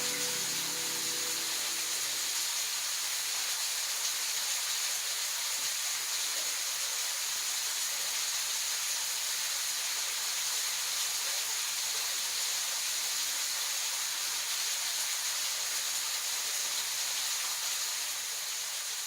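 Steady high hiss with no rhythm or pitch changes, fading out near the end.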